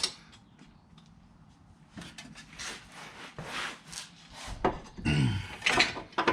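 A hand wrench scraping and working on the differential brace's mounting bolts, in irregular strokes, with metal clinks near the end. A short strained grunt, falling in pitch, comes about five seconds in.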